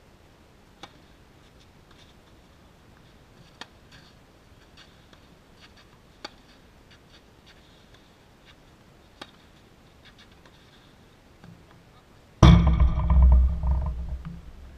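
Tennis ball struck back and forth by rackets in a rally: sharp single pops about every two and a half to three seconds, with fainter ticks in between. Near the end a sudden loud thump close to the microphone is followed by about two seconds of rumble that dies away.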